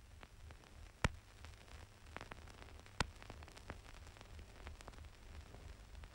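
Faint background noise of an old recording's soundtrack after the music has ended: a low hum and hiss with scattered crackles, and two sharp pops, about a second in and at about three seconds.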